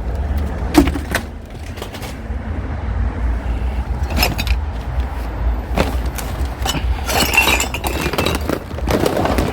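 Scattered knocks and clatter of discarded electronics such as keyboards being handled and moved, over a steady low rumble.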